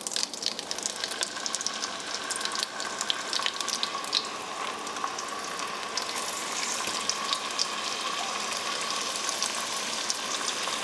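Skinless pheasant breasts sizzling in hot butter and olive oil as they are laid into the pan piece by piece: a steady frying hiss with constant crackling and spitting.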